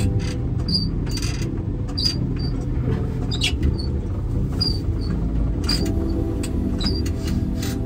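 A small enclosed vehicle moves slowly with a steady low rumble. Short, high-pitched squeaks come every half second or so, with a few sharp clicks.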